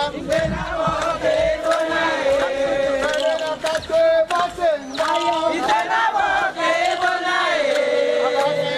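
A group of Qua Ejagham mourners chanting together in a traditional royal funeral song, several voices holding long notes that shift slowly in pitch.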